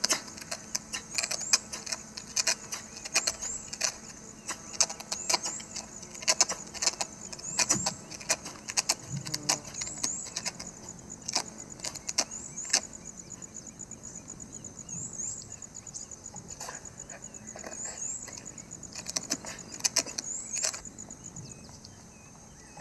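Honey badger struggling to free itself from a narrow tree-hive entrance where it is wedged: irregular sharp scratches and scrapes of claws and body on bark and wood. They come thick and fast at first and thin out after about thirteen seconds, over faint high chirping that repeats in the background.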